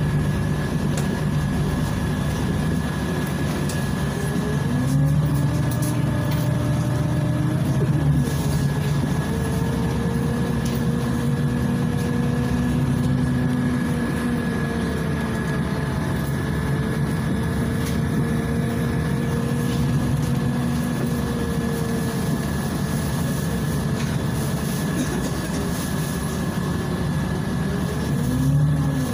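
Cabin sound of a Volgabus 5270G2 city bus on the move, its Yuchai compressed-natural-gas engine humming low with an engine note that rises about five seconds in, holds and eases through the middle, and climbs again near the end as the bus pulls away. A steady thin high whine runs under it.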